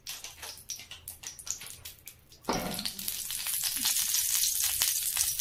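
Cooking oil heating in a wok: scattered light crackles, then about halfway through a sudden, steady, louder sizzle.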